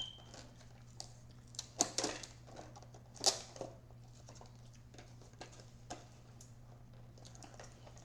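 Eating sounds during a sushi meal: scattered small clicks and crinkles of utensils and plastic packaging, the loudest about two and three seconds in, over a steady low hum.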